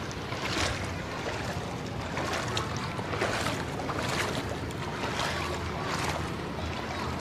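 A person wading through street floodwater, a splashing swish with each stride about once a second, over a steady rush of moving water.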